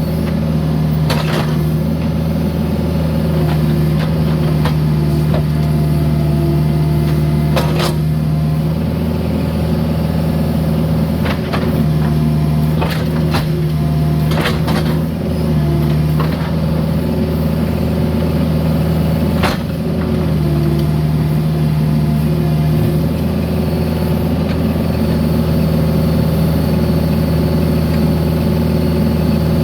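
Mini excavator's diesel engine running steadily, with scattered sharp knocks, several in pairs, as concrete is dug out and handled.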